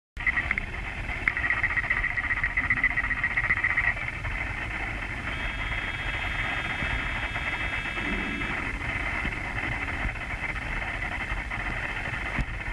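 Underwater sound of a 1/72-scale radio-controlled Kilo-class submarine model under way: its electric drive motor and propeller give a buzzing whine over a low rumble. The buzz is harsher for the first four seconds, and a few steady high tones sound together from about five seconds in to about eight and a half.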